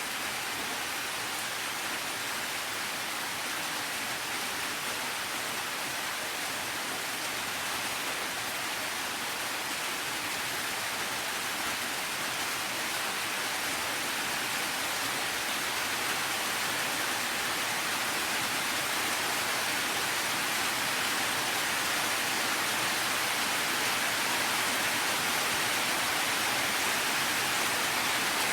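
Steady rain, an even dense hiss with no single drops standing out, growing slightly louder toward the end.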